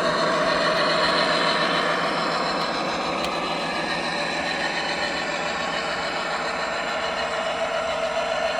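Cavalex model Class 60 locomotive running: a steady mechanical whir with several held tones that drift slightly in pitch.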